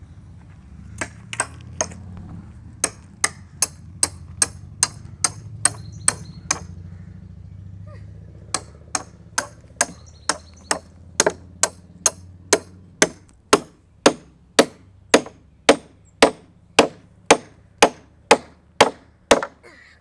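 Steel bolt being driven through a wooden post into the deck frame with a hammer: sharp hammer strikes about two a second, a pause of a couple of seconds near the middle, then a second run of blows that grows louder toward the end.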